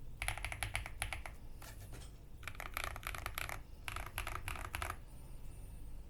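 Typing on a Xinmeng M87 mechanical keyboard with Black Plum linear switches and double-shot keycaps: quick runs of keystrokes in four bursts with short pauses, stopping about five seconds in. The stock, fully foamed board gives a fairly thocky sound with a light pop.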